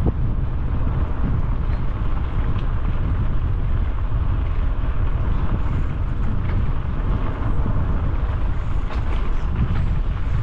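Steady rumbling wind noise on a helmet-mounted action camera's microphone while cycling along, with no breaks or distinct events.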